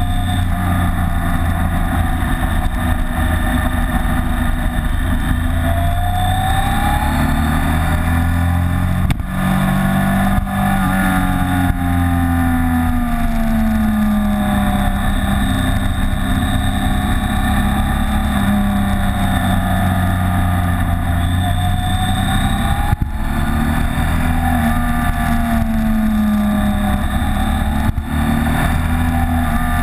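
BMW K75 motorcycle's inline three-cylinder engine running under way, its note rising and falling with the throttle through the bends, with a few brief dips in loudness, recorded from the windshield.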